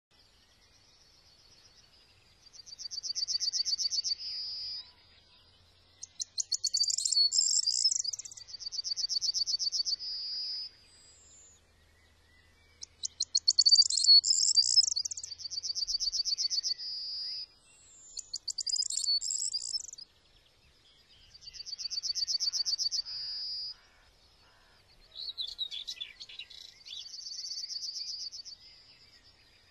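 A small songbird singing: short, high, trilled phrases about two seconds long, repeated again and again with pauses of about a second between them.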